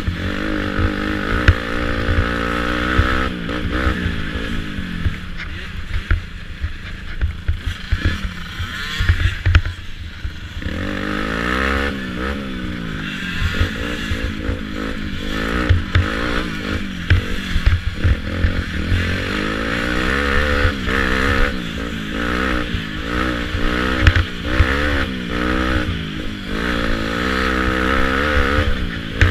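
Youth ATV engine being ridden hard, its pitch rising and falling constantly with throttle and gear changes. It eases off for a few seconds about five seconds in, then climbs again. Low buffeting and knocks from the rough ride run underneath.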